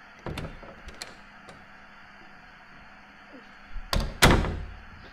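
Edited-in sound-effect hits: a few sharp knocks in the first second and a half, then two loud booming impacts about four seconds in, with a low rumble that fades out.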